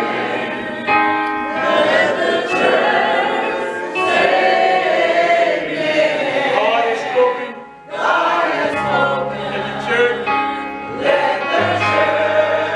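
Gospel choir singing with keyboard accompaniment; low bass notes come in about nine seconds in.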